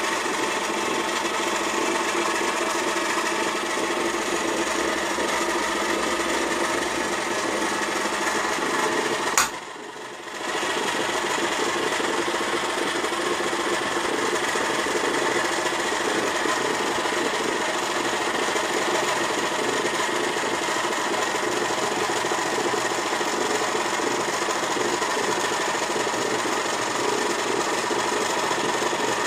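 Electric motor of a 1960s-era Kenwood Chef stand mixer running steadily with a whirring hum. About a third of the way in there is a click, and the sound drops out for about a second before it runs on.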